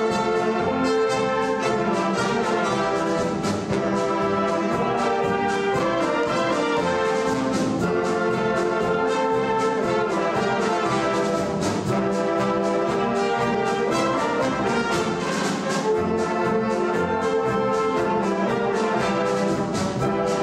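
Wind orchestra playing, with brass to the fore (trumpets, trombones, tuba) over woodwinds and drum kit, at a steady full level.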